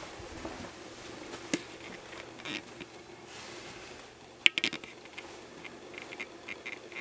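Footsteps and camera handling noise: a single sharp click about a second and a half in, and a quick cluster of clicks and taps about four and a half seconds in, followed by scattered lighter ticks.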